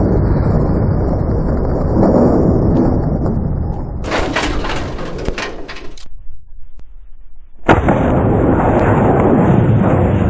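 Heavy wind buffeting the microphone, a dense low rumble. About four seconds in it breaks into crackly rustling, then drops to near quiet for a second or two. It comes back suddenly with a single sharp jolt.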